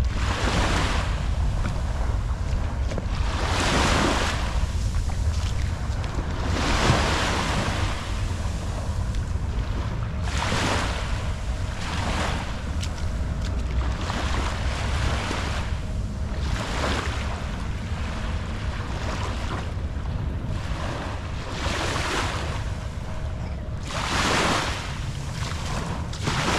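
Small waves washing up on a sandy shore, swelling and fading every couple of seconds, with a steady low rumble of wind on the microphone.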